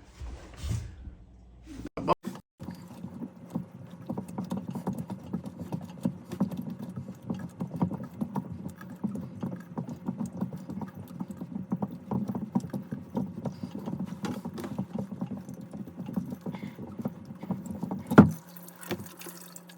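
Water pattering and dripping steadily from a just-unscrewed well water filter housing, as many quick small drops. There is one loud knock near the end.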